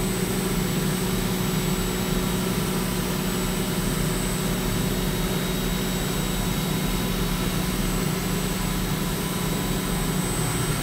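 Kennametal HARVI III end mill side-milling A286 aerospace stainless steel in a CNC machining centre at 4% radial step-over and 1 inch full depth. It makes a steady, even cutting sound with a thin high whine over the hiss of flood coolant spray. This is a smooth cut in the tool's sweet spot, which the machinist calls "butter".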